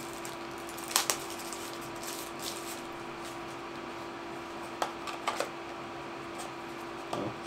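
A few sharp plastic clicks and knocks as a DJI Mavic Mini battery is handled and slotted into its charging hub, over a steady low hum.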